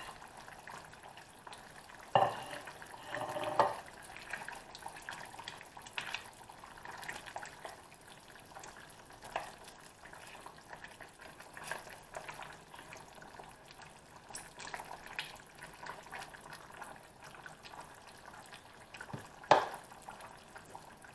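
Kaldereta stew simmering and sizzling faintly in a stainless steel pan while a spatula stirs and scrapes through the meat and vegetables, with scattered knocks of the utensil against the pan and one sharp knock near the end.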